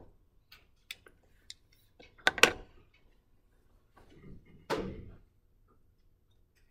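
Knocks and clicks of something being handled: a few light clicks, a loud sharp double knock about two and a half seconds in, then a duller, longer bump near five seconds.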